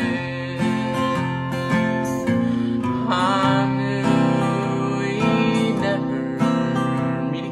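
Steel-string acoustic guitar strummed in a slow, steady rhythm, with a brief sung note about three seconds in.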